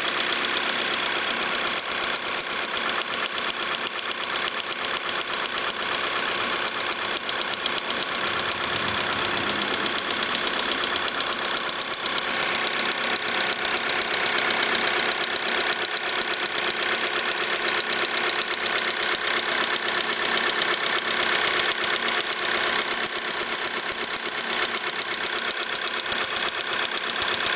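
Volkswagen Polo 6R's 1.6 TDI four-cylinder diesel engine running steadily with a rapid, even ticking knock, a little louder from about twelve seconds in. This is the strange sound that the owner takes for an engine problem.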